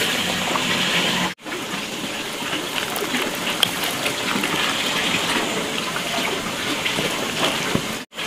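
Steady rush of running water, cutting out for a moment about a second in and again near the end.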